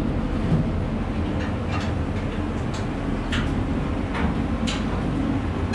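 Steady low rumble with about half a dozen light metallic knocks and clicks scattered through it, from steel storeroom shelving being handled and reinstalled.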